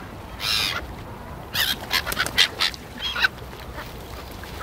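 Black-headed gulls calling around a flock being fed bread: one harsh, high call about half a second in, then a quick run of several overlapping calls between about one and a half and three and a half seconds in.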